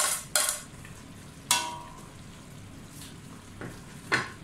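Vegetables being scraped off a plate into a pot and stirred: a spatula clacks sharply against the plate and pot about four times, one knock ringing briefly, over a steady sizzle of sautéing.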